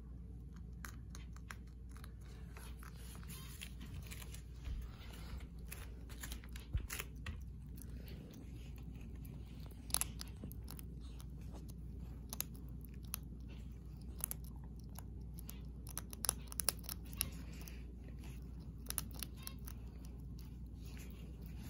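African pygmy hedgehog crunching dry food pellets, a loud, irregular run of sharp crunches as it chews, coming thickest in a few bunches.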